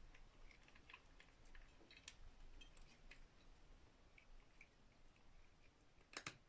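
Two cats chewing fish: faint, scattered wet clicks and crunches of eating, with a sharper double click near the end.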